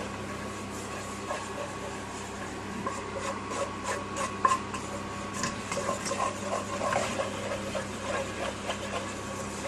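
Wire whisk stirring flour into melted butter for a roux in a non-stick saucepan, its wires scraping and clicking against the pan in quick irregular strokes from about three seconds in. A steady low hum runs underneath.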